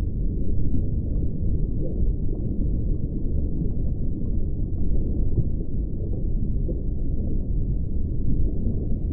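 A deep, steady rumble with no distinct events and nothing above a low pitch.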